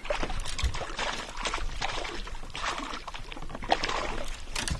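Irregular water splashing from a hooked largemouth bass thrashing at the surface as it is brought to the boat.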